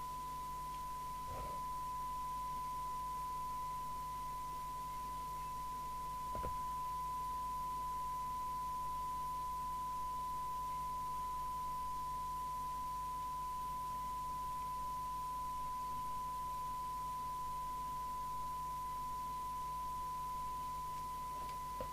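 A steady 1 kHz test tone with a faint overtone an octave up, from the loudspeaker of a 1981 Major 3000 FM CB radio as it receives the signal generator's tone-modulated test signal during alignment.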